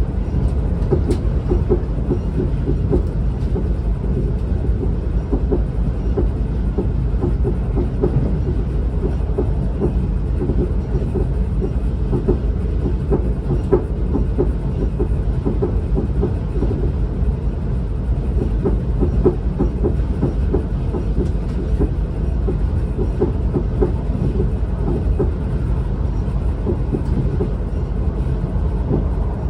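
Class 444 Siemens Desiro electric multiple unit running at speed, heard from inside the carriage: a steady rumble of wheels on the track, dotted with frequent light clicks and rattles.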